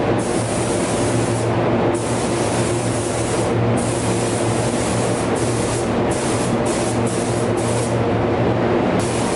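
Gravity-feed air spray gun hissing as it sprays paint onto a car bumper, the hiss breaking off and starting again several times, mostly in the second half, as the trigger is let go between passes. A steady low hum runs underneath.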